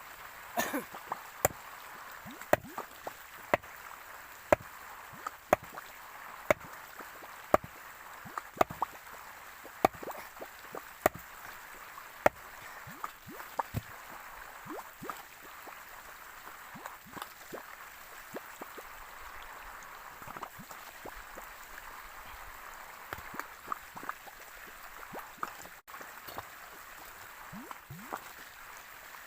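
Water running steadily, with sharp clicks and knocks on top, about one a second in the first half and fewer later.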